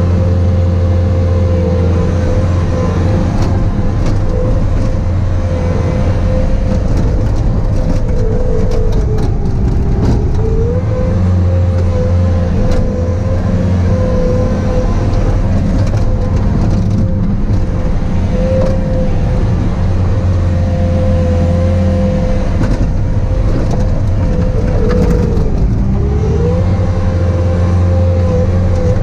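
Bobcat T595 compact track loader's diesel engine running hard with a steady whine. Its pitch sags briefly twice, about ten seconds in and again near the end, as the engine bogs under load pushing snow, then recovers.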